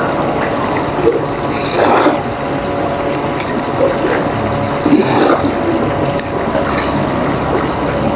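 A steady mechanical hum mixed with running-water noise. Brief rustles of clothing rubbing on the microphone come about two seconds in and again about five seconds in.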